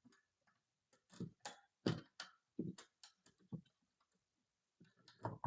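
Faint, irregular clicks and knocks of a flathead screwdriver and hard plastic as the backup battery is pried out of a 2GIG GoControl alarm panel: about eight between one and four seconds in, and two more near the end.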